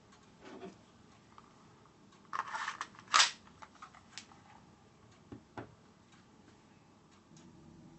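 A magazine slides into the grip of a Marushin AMT Automag gas-blowback airsoft pistol with a short scrape and clicks home with one sharp metallic snap. A couple of lighter knocks follow about two seconds later.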